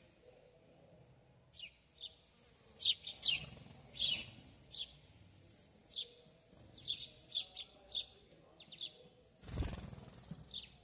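Sayaca tanager calling: a string of short, high, thin chirps, irregular and sometimes two or three close together. A brief rush of noise comes about nine and a half seconds in.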